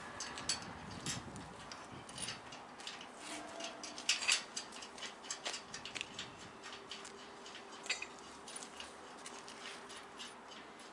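Light, irregular metallic clicks and taps from hands working on a small steel trolley frame, with a brief cluster of louder clicks about four seconds in.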